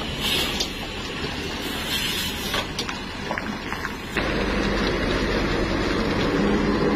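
Intercity coach's diesel engine running with road noise and a couple of short hisses. About four seconds in the sound changes abruptly to a louder, closer engine with a steady low drone whose pitch lifts slightly near the end, as the bus works around a tight bend.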